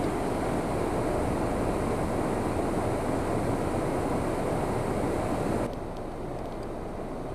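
Steady rushing outdoor noise that drops abruptly to a quieter hiss a little before the end.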